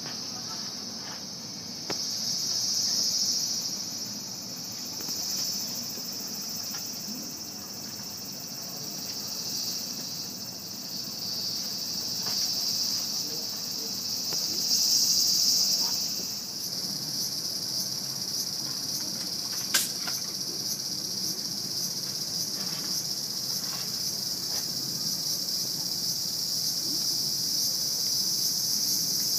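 A steady, high-pitched chorus of summer cicadas, swelling and easing in waves, with one sharp click about twenty seconds in.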